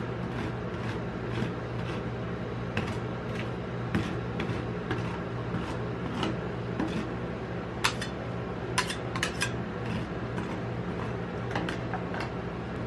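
Metal ice cream spatula scraping and tapping against the frozen steel plate of a rolled ice cream machine as the flattened ice cream sheet is smoothed out, with a run of sharper clinks a little past the middle. A steady low hum runs underneath.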